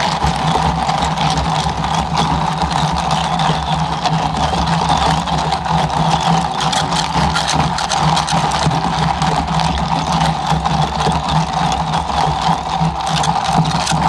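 Electric drink mixer running steadily, its spinning rod blending an iced peach drink inside a domed plastic cup: an even motor whir with a low hum.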